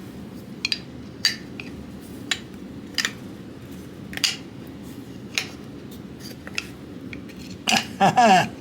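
Scattered light clicks and taps of small metal engine parts being handled and fitted, pins and an oil seal going into a motorcycle engine case, roughly one every second. Near the end comes a short wordless vocal sound.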